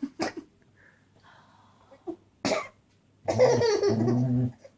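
Fake sneezing by an adult: a short, sharp sneeze burst about two and a half seconds in, then a low-voiced, drawn-out wind-up near the end. A baby's laughter trails off at the very start.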